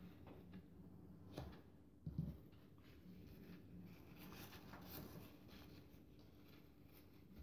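Faint rustling and crinkling of crepe paper being handled and pressed around a paper flower head, with a soft thump about two seconds in.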